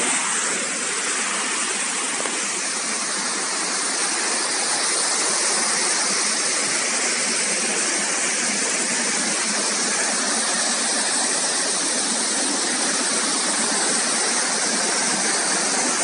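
Waterfall pouring down a stepped rock face: a steady, unbroken rush of water.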